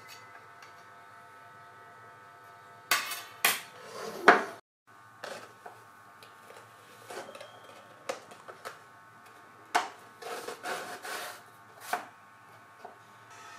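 Handling noises of a PVC pipe and a cardboard band being worked on a tabletop: rubbing and scraping with a series of knocks and taps. The loudest knocks come in a cluster a few seconds in, with lighter taps after that.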